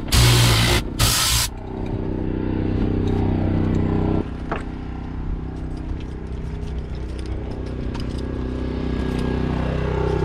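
Short spurts of compressed air hissing from a blow-out tool for about a second and a half, then a steady engine hum from machinery running outdoors for the rest.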